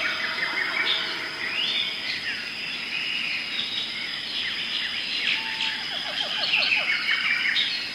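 Many birds chirping and chattering at once in dense, overlapping short calls, with a steady high-pitched tone running underneath.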